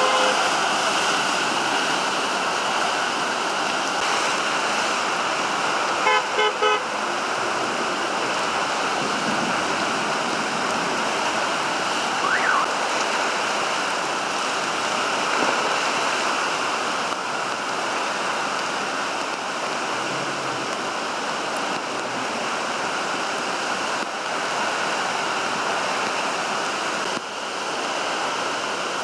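Steady hiss of a heavy downpour and water on a flooded street with traffic, and a car horn giving three quick toots about six seconds in.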